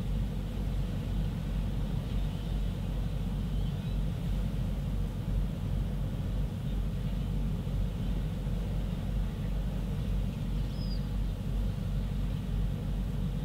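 Steady low outdoor rumble with a faint steady hum, and one brief high chirp about eleven seconds in.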